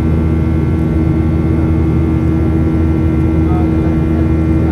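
Boeing 737's CFM56 turbofan engines heard from inside the cabin over the wing: a loud, steady drone with a constant hum over a low rumble.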